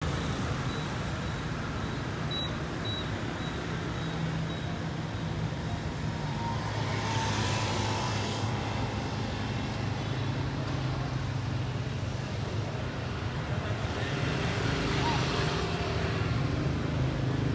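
Road traffic: a steady low engine hum, with vehicles passing by about seven seconds in and again about fifteen seconds in.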